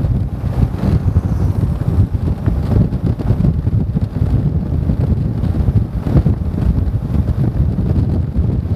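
Wind buffeting an action camera's microphone while riding along a road, a loud, steady low rumble.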